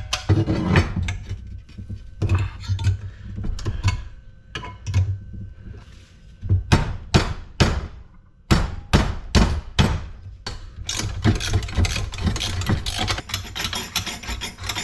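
Hand tools and metal parts knocking and clattering as a cast-aluminium LED light fixture is taken apart for scrap. A run of sharp knocks comes about halfway through, then a fast, steady scraping rattle near the end.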